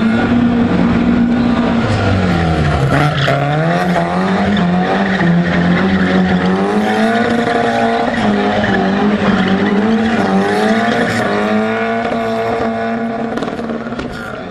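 Rally car's engine revving hard, its pitch rising and falling repeatedly as the driver works the throttle through a drift, with tyres skidding and squealing on the cobbles.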